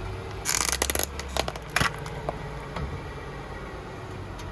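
A car engine idling low, with a short loud scraping rustle about half a second in and a few sharp clicks and knocks after it.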